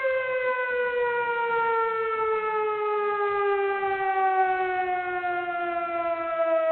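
A siren wailing on one tone that slides slowly and steadily down in pitch.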